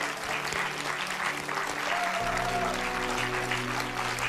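Studio audience applauding over background music; low bass notes come into the music about two seconds in.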